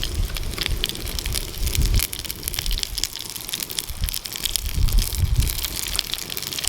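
Fire pit crackling with burgers sizzling over it: many quick pops and crackles. Wind gusts buffet the microphone with low rumbles, about a second in and again around five seconds.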